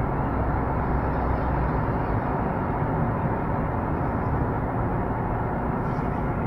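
Steady in-cabin driving noise of a Honda Fit Shuttle Hybrid under way in assist mode, with the petrol engine and electric motor driving together. It is an even low rumble of road, tyres and drivetrain.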